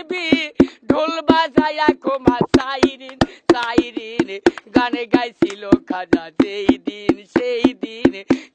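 Sung devotional folk song: a voice holding long, wavering notes over a steady drumbeat of about four strokes a second, with a low sustained note underneath.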